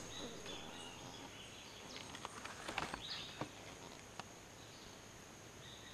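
Faint outdoor ambience with a steady high insect drone, and a few light snaps and rustles of twigs and leaves about two to three and a half seconds in as young red howler monkeys clamber and play in a tree.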